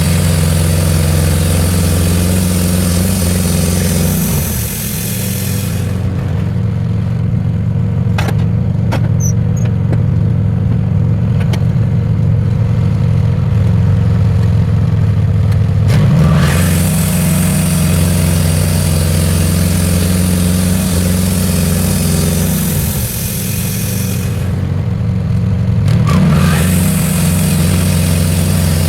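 Portable band sawmill's engine running steadily while the band blade cuts an ash log, the hiss of the cut stopping about six seconds in and coming back around sixteen seconds. In between the engine runs on with a few clicks, and the cutting hiss breaks off again briefly near twenty-four seconds.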